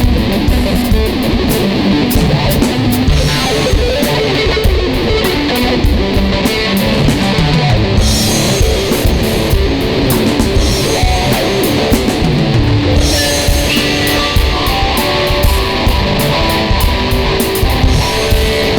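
Ibanez electric guitar playing a riff over a steady drum beat. The cymbal and drum hits ease off briefly twice while the guitar carries on.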